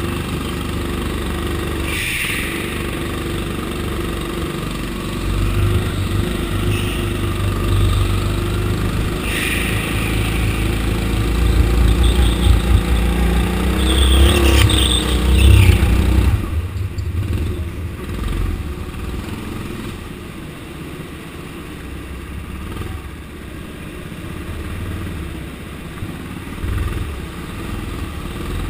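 Go-kart engine running at full throttle on track, rising and falling as the kart accelerates and slows, with a few brief sharper noises. It is loudest about halfway through, then drops off sharply and runs quieter.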